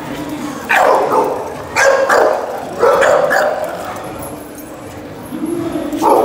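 A dog barking: three barks about a second apart, then one more near the end.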